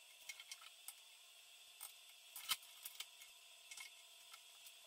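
Faint scattered small metallic clicks and taps of hand tools being handled at a steel workbench, over a steady faint hum. One sharper click comes about two and a half seconds in.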